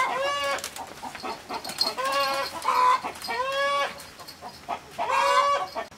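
A rooster squawking loudly as it is grabbed and held: about five harsh, drawn-out calls spread through the few seconds.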